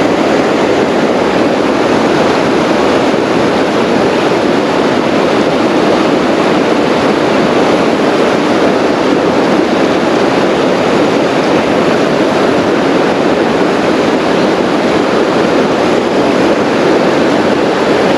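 Steady rush of fast-flowing river water, an even, unbroken roar with no separate events.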